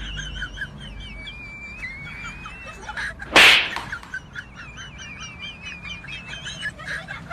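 Rapid, high chirping and twittering runs throughout, interrupted by one loud, sharp crack about three and a half seconds in.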